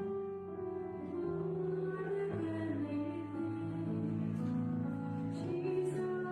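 Worship song: slow music with long sung notes over instrumental accompaniment.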